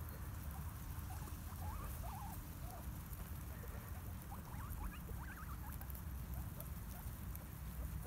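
Rabbits grazing close up, nibbling and tearing at grass, with scattered faint short rising squeaks.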